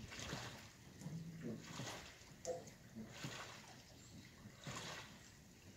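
Faint water lapping against a dock, a soft slosh about every second and a half.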